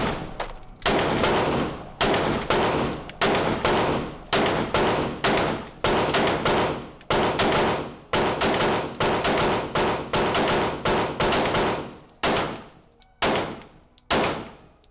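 A 9mm handgun firing a long string of single shots, roughly one a second and spaced out more toward the end, each shot trailed by echo.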